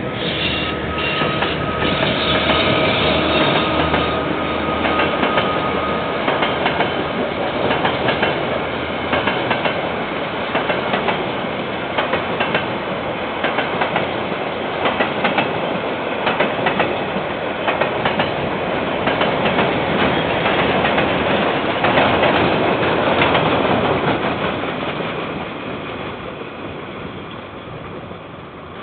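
KiwiRail container freight train passing: a steady rumble of wagons with many rapid wheel clicks over the rail joints, fading away over the last few seconds. Heard through a security camera's microphone.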